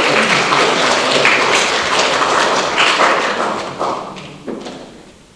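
A dense, noisy din that fades away steadily, with a few scattered taps and knocks.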